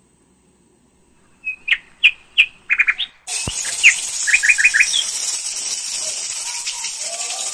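Small birds chirping in short quick calls, then about three seconds in a steady hiss of steam escaping from a pressure cooker's weight valve starts suddenly, with a single knock just after it and a few more chirps over the hiss.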